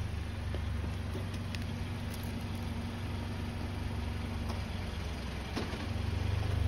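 A car engine idling steadily, a low hum, with a faint steady tone above it that stops about four and a half seconds in.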